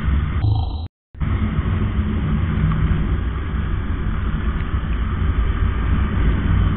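Motorcycle riding at speed: a steady low engine rumble mixed with rushing road noise. The sound cuts out for a moment about a second in.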